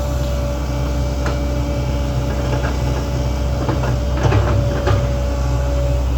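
Link-Belt 2700 excavator's diesel engine running steadily with a steady high tone over it, and a few knocks and scrapes from the digging, clustered about four to five seconds in.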